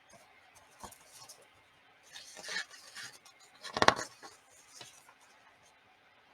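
Picture-book pages being turned and the book handled: soft paper rustling, with a louder crackly rustle about four seconds in.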